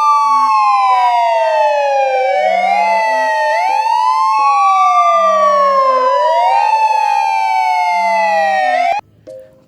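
Police siren wailing, two tones sliding slowly up and down together, each rise and fall taking about three to four seconds. It cuts off abruptly near the end.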